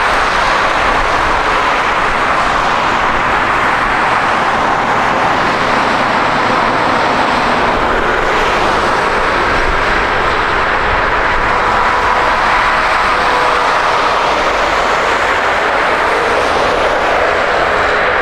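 Jet engine noise from a Boeing 777-200ER's twin turbofans as the airliner rolls along the runway, a loud steady rush with faint engine whines, one of which begins to rise in pitch near the end.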